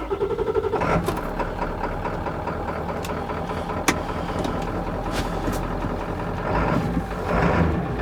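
1995 Ford F350's 7.3 L Powerstroke V8 turbo-diesel restarted after stalling: a brief starter whine with fast cranking pulses for under a second, then the engine catches and settles into a steady idle, growing a little louder near the end.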